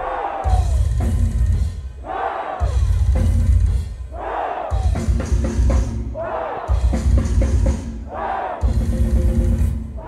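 A live rock drum kit playing a drum solo in loud bursts of rapid bass drum with cymbals, each just over a second long, about one every one and a half seconds with short breaks between.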